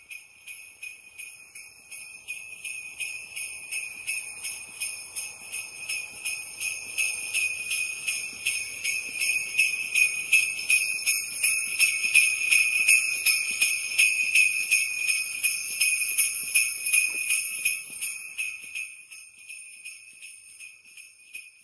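Sleigh bells shaken in a steady rhythm, about two shakes a second, at the close of a Christmas song recording. They grow louder toward the middle and then fade out near the end.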